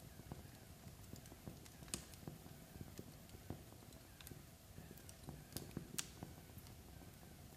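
Log fire burning down to embers, crackling faintly with irregular small pops and snaps over a low rumble; two sharper snaps stand out, about two seconds in and near six seconds.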